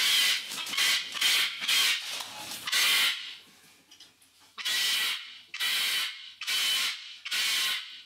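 Cockatoos screeching, harsh noisy calls repeated about twice a second, then, after a brief lull near four seconds in, about once a second.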